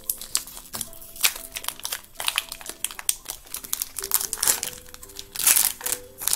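Foil Pokémon booster pack wrapper crinkling as it is handled and opened, a string of sharp crackles with the loudest burst about five seconds in. Soft music with sustained notes plays underneath.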